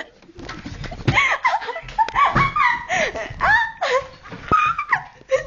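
People laughing and giggling in high, breaking voices, with a single sharp click about two-thirds of the way through.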